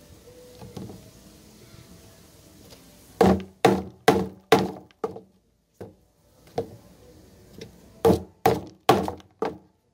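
Wolf 5.56 neck knife, a small fixed blade in 8Cr13MoV steel, chopping down into a wooden stick lying on a wooden board: a quick run of four hard thunks about three seconds in, three single strikes, then another run of five near the end.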